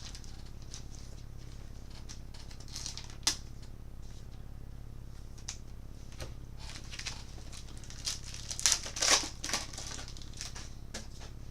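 Trading-card pack being torn open and the cards handled: scattered crinkles of the foil wrapper and light clicks and rustles of cards, loudest about three seconds in and again near the end, over a steady low hum.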